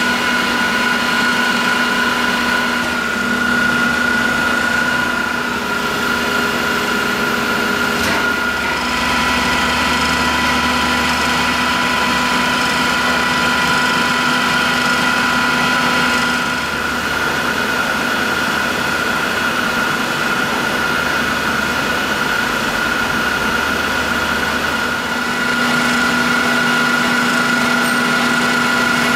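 Cazeneuve HB500 geared-head centre lathe running steadily while turning a spinning workpiece, with a steady machine whine over an even mechanical hum.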